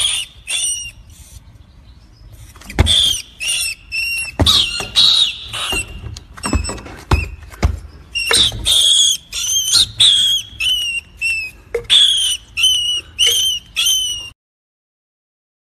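A small songbird calling over and over with short, high chirps, about one or two a second, until the calls stop abruptly near the end.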